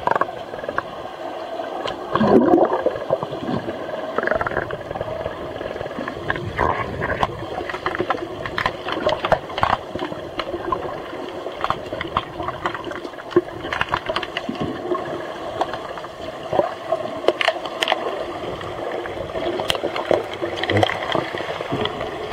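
Muffled sound heard from under water in a swimming pool during an underwater hockey game: a steady rush of water and bubbles from the swimmers, with many short sharp clicks and knocks.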